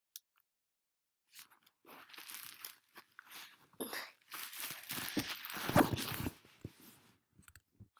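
Close-up crunching and rustling noises in irregular bursts, loudest about six seconds in.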